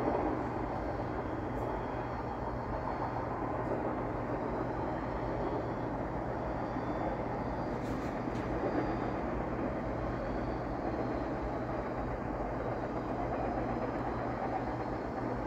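Empty Norfolk Southern intermodal freight train running past at speed: the cars rolling on the rails make a steady, unbroken noise.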